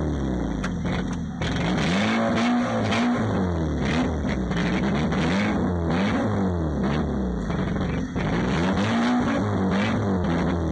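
Banger racing car's engine heard from inside the stripped cabin, revving up and falling back over and over, about once a second, with scattered knocks and rattles.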